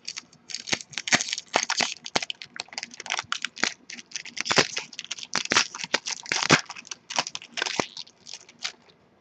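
Foil wrapper of a Topps Strata trading-card pack being torn open and crinkled by hand: a rapid, irregular run of crackles that stops shortly before the end.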